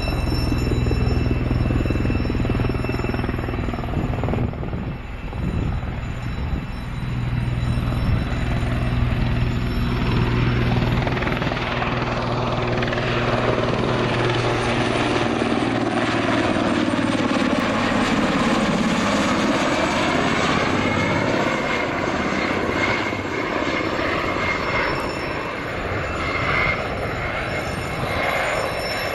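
Puma-type twin-turbine transport helicopter flying in close: a steady low rotor drone through the first half, then sweeping, shifting tones as it passes near.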